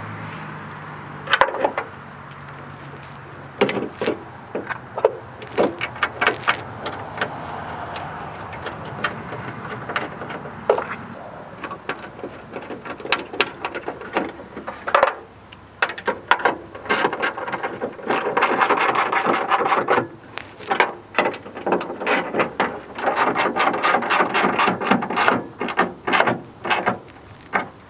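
Socket ratchet clicking in quick runs as the small bolts holding a starter solenoid to the inner fender are turned, with scattered knocks and rattles of metal parts being handled. The clicking is sparse at first and comes in dense runs from about halfway on.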